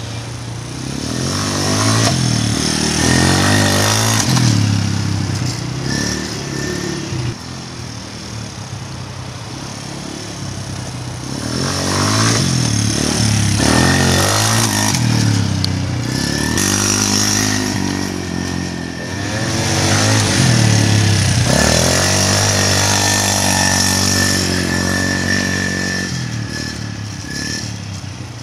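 Quad bike engines running and revving, the engine note climbing and falling back several times as the throttle is opened and eased off. Through much of the second half a thin, steady high whine runs with the engine.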